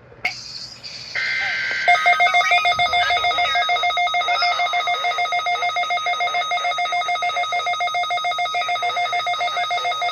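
Emergency alert signalling: one or two short screeching bursts of SAME digital header data, then from about two seconds in an electronic alert tone pulsing rapidly, about five pulses a second, until it cuts off sharply at the end.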